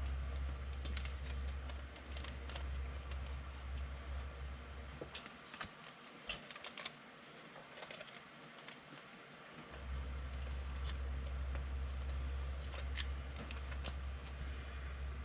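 Trading cards and pack wrappers being handled, with scattered light clicks and rustles, over a steady low hum that drops out for a few seconds midway.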